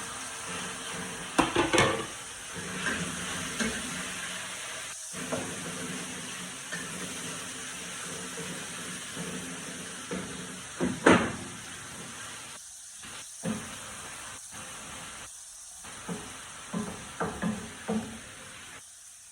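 Boneless, skinless chicken thigh frying in a hot pan, sizzling steadily, with a few louder knocks and scrapes as it is stirred. The sound cuts out briefly a few times in the second half.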